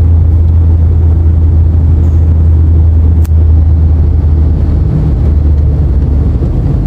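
Car engine and tyre drone heard inside the cabin while driving through a road tunnel: a loud, steady low rumble. One sharp click about three seconds in, and the drone shifts slightly near the tunnel exit.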